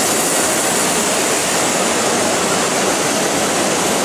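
Steady, even rushing din of a busy exhibition hall, with no distinct motor whine or tyre squeal standing out.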